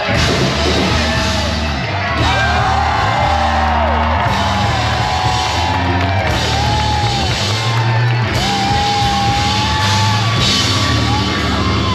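Live post-hardcore rock band playing loudly, with heavy guitars, bass and drums under a voice singing long gliding notes.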